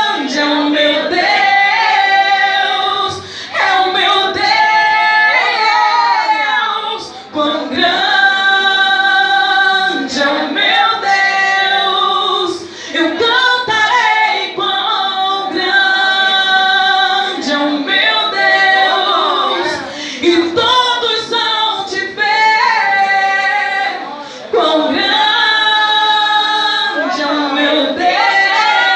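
A woman singing a hymn solo into a hand-held microphone, in long held phrases with short breaths between them.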